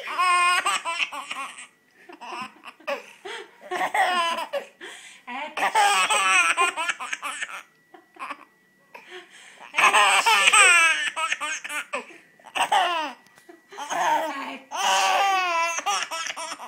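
A baby laughing in about six bursts of quick belly laughs with short pauses between, each set off by a woman's fake sneeze.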